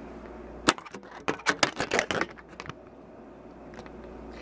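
Steel tape measure being handled: a quick run of sharp clicks and rattles of the blade and case, starting about a second in and stopping by the middle.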